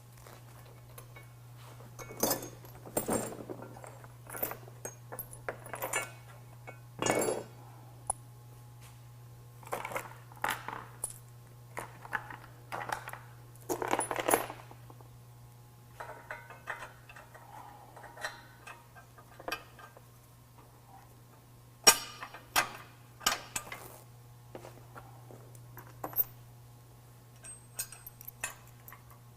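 Bolts, nuts and washers clinking and rattling against steel brackets as they are handled and fitted, in scattered bursts of metallic clatter, over a steady low hum.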